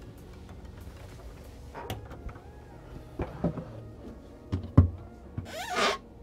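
Wooden fold-down desk top being pulled up and set in place: several knocks and clicks, the loudest about two-thirds of the way in, then a short squeaking rub of wood near the end.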